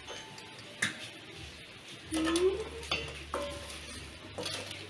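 Metal slotted skimmer and spatula clinking and scraping against a steel wok as fried potato strips are lifted out of hot oil, a few sharp clinks over faint oil sizzle. A short rising tone about two seconds in is the loudest moment.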